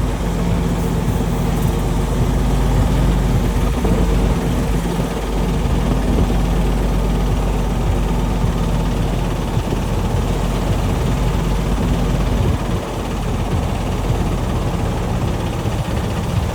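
A vehicle engine running steadily with an even low hum, easing off slightly about two-thirds of the way through.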